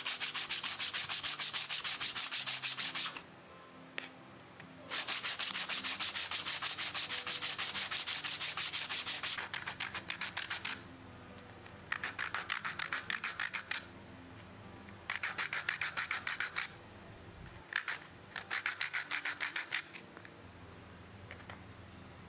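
A small wooden piece hand-sanded on sandpaper: quick back-and-forth rubbing strokes in several runs of two to five seconds each, with short pauses between.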